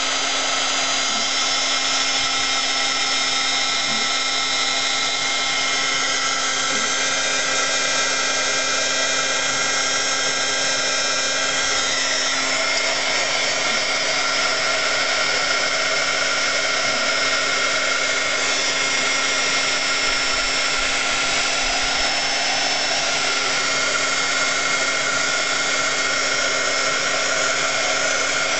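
Craft heat tool (embossing heat gun) running steadily, blowing hot air to dry a fresh base coat of paint. It makes a constant whine with several steady tones over a rushing hiss.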